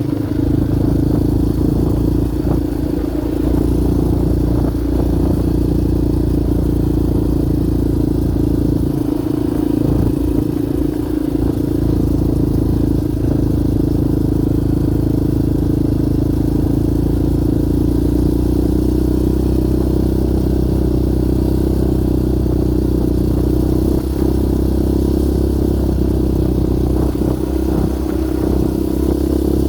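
Yamaha Raptor 700R quad's single-cylinder four-stroke engine running steadily as it is ridden, holding an even note with little change in pitch.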